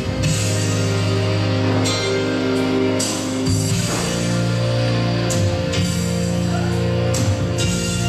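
Rock music with guitar playing continuously as a wrestler's entrance theme.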